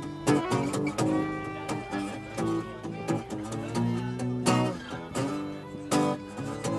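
Background song with acoustic guitar strumming and plucked notes, in an instrumental stretch between sung lines.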